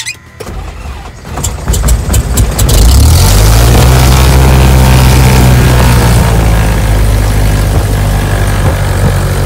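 Cessna 172's piston engine being started: the starter cranks it for about a second, it catches about three seconds in, and it runs on steadily, its revs easing slightly as it settles.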